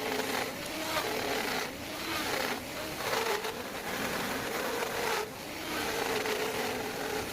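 A power tool cutting a groove in wood, its motor hum steady under load and broken by a few brief dips between strokes.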